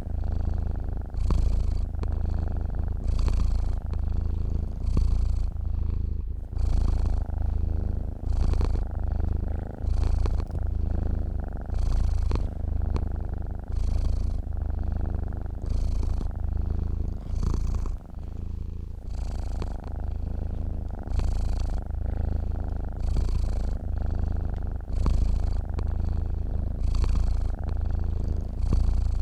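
A sleeping domestic cat purring: a steady deep rumble that swells in a slow rhythm with its breathing, about once every two seconds.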